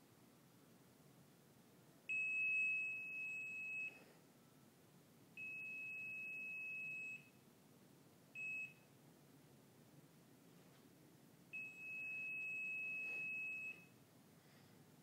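Black & Decker electronic stud finder beeping as it is passed over a cat, signalling a detection: four steady high-pitched tones, three of them about two seconds long and one short blip near the middle.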